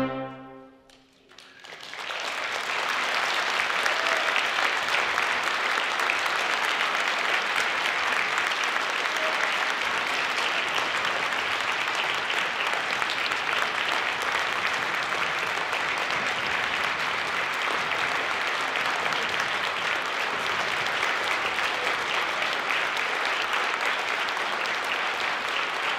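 The concert band's final chord dies away, then after a moment of quiet an audience breaks into steady applause.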